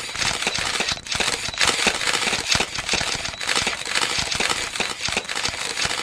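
Audience screaming and clapping: a dense, loud wall of cheering shot through with irregular hand claps, with no music yet.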